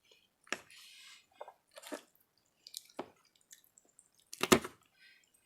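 Close-miked eating sounds: a series of short wet clicks and smacks of a person chewing food. About four and a half seconds in comes one much louder, sudden short sound.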